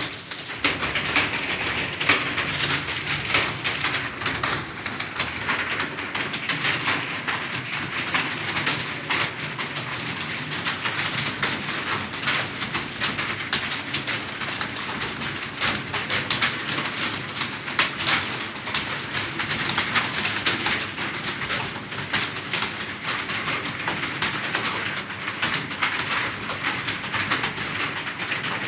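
Computer keyboard typed fast and continuously, a dense steady run of key clicks.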